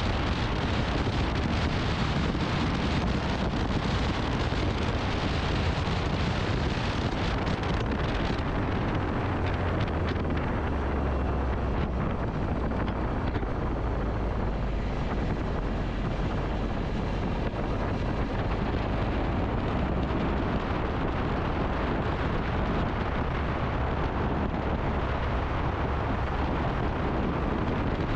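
Motorcycle on the move, its engine and road noise buried under steady wind buffeting on the microphone.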